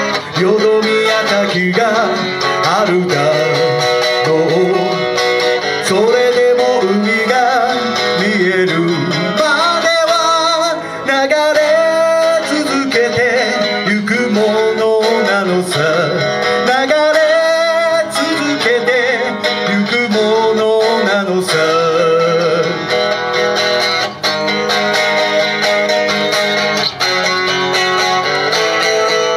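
A man singing a song to his own electric guitar, amplified through small PA speakers.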